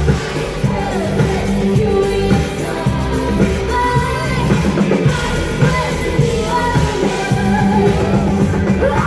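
Pop-rock music with a singing voice over a band with a strong bass line.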